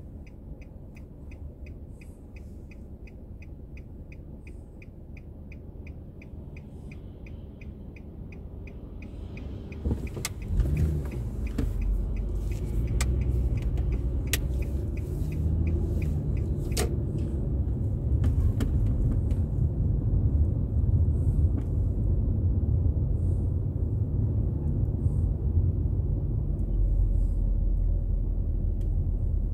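Car driving, heard from inside: at first quiet with a rapid, even high ticking, then about ten seconds in a steady low engine and road rumble swells up as the car gets moving, with a few sharp knocks soon after.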